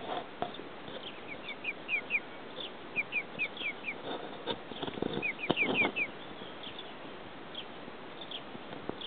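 Six-week-old Marans chicks peeping: short, falling high notes in quick runs of three to five, with a few soft knocks near the middle.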